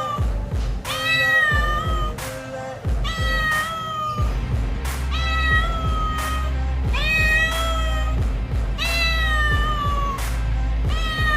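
Domestic cat meowing repeatedly in a shrill voice: about six long meows of about a second each, spaced roughly two seconds apart, each sliding down in pitch at its end. Background music with a steady beat plays underneath.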